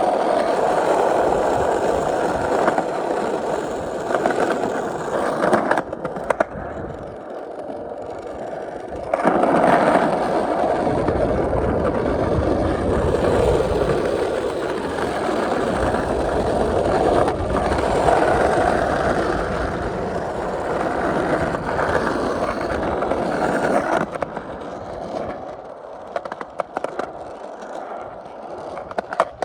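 Skateboard wheels rolling over pavement: a steady rolling rumble with a few sharp clicks. It eases off for a few seconds about six seconds in and again near the end.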